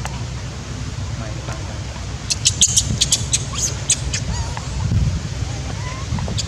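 Baby long-tailed macaque crying after being weaned off the nipple: a quick run of shrill squeaks about two seconds in, then faint wavering whimpers. A steady low rumble runs underneath.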